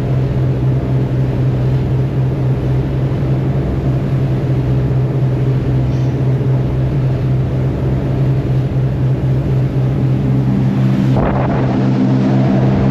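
Fishing boat's engine running steadily underway with a low, even hum. About eleven seconds in there is a short rush of noise, and the engine note changes and grows slightly louder.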